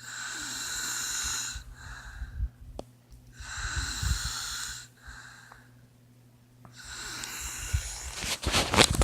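A person snoring in sleep: three slow breath cycles, each a loud rattling snore on the in-breath followed by a softer breath out. The last one builds to the loudest and roughest near the end.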